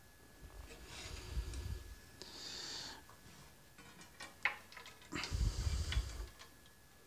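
Handling noises from an oven-gloved hand and an opened ration tin over a stainless steel compartment tray: rustling and low bumps of the quilted glove, with a few light clicks and clinks of the tin against the tray a little past halfway.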